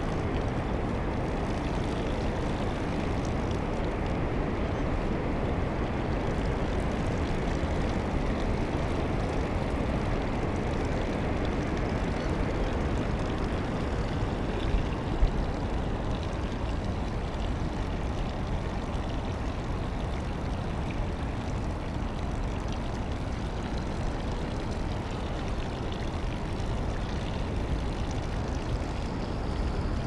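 Steady low noise of a fatbike being ridden over wet, water-covered beach sand, heard through a handlebar-mounted camera: wind on the microphone and the fat tyres on the wet surface. Two brief knocks about halfway through.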